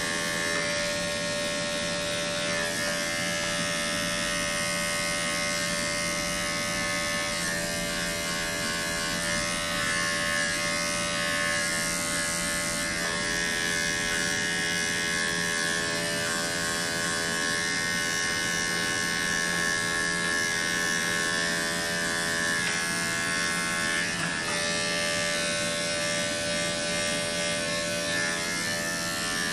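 Corded electric dog grooming clipper running with a steady, even buzzing hum as it shaves close through a dog's belly and groin fur.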